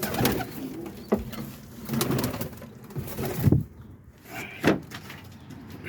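Roller pigeons cooing, mixed with a few knocks and short rustling bursts from the birds moving about.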